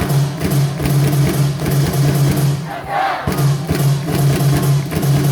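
Baseball stadium crowd cheering and chanting over amplified cheer music with a steady, repeating drum beat, with a few shouts rising above it.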